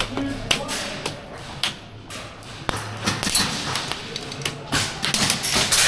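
Scattered sharp clicks and knocks at irregular intervals, a dozen or so, over a low background hum.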